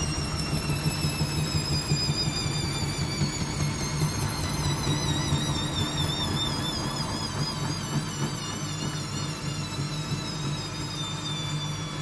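Hoover front-loading washing machine spinning an unbalanced load on a 700 rpm intermediate spin. The motor's whine falls slowly in pitch and wavers as the drum slows, over a steady low hum.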